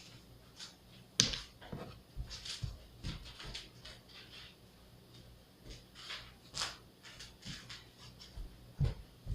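Scattered light knocks, taps and rustles of someone moving about a small room, with one sharper knock about a second in.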